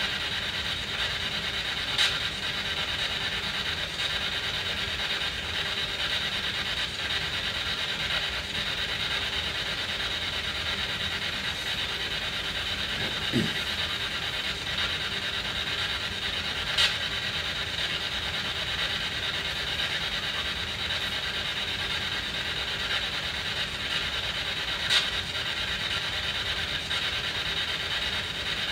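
SB7 spirit box sweeping through radio stations, giving a steady hiss of static, with three sharp clicks.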